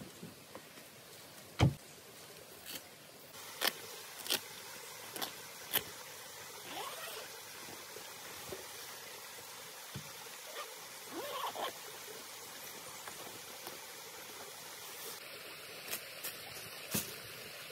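A car door thuds shut about two seconds in. Scattered light clicks, knocks and brief rustles follow as a soft nylon rooftop cargo bag is handled on the roof crossbars.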